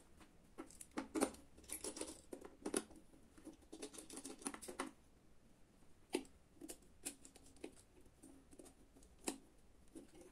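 Faint, irregular clicks, taps and rustles of hands handling wires and a small circuit board while fitting a wire into its blue terminal block.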